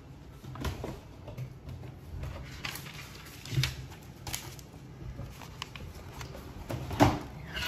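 Scattered clicks, knocks and rustles of objects and a sheet of paper being handled on a desk, the loudest about seven seconds in.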